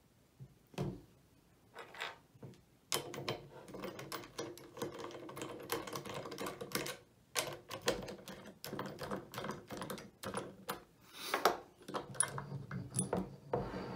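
A Crimson Trace Railmaster laser being unclamped and taken off a Ruger PC Carbine's handguard rail: hard plastic and metal clicking, tapping and scraping. A few single clicks come first, then a dense run of them from about three seconds in, broken by short pauses.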